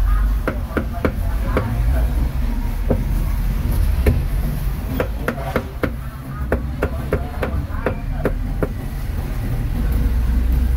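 Cleaver chopping pork on a wooden chopping block: a run of sharp chops, two or three a second with short pauses, over a steady low rumble.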